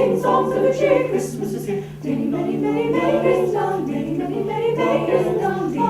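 High school choir singing a cappella, several voices in harmony with no instruments.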